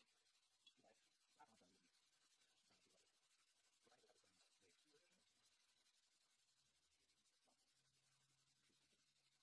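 Near silence, with very faint, irregular scratchy strokes of 150-grit sandpaper rubbed by hand along a steel sword blade.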